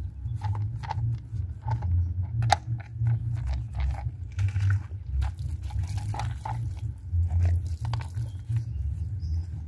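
A soapy wet rag scrubbing a Honda Dream 110's plastic air filter housing, irregular wet rubbing and scraping strokes, over a steady low rumble.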